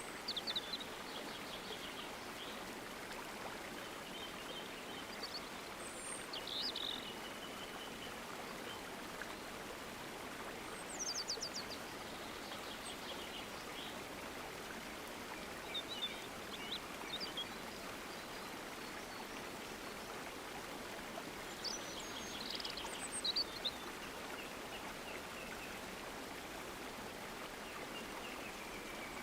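Running water, a stream flowing steadily, with small birds chirping and trilling now and then above it.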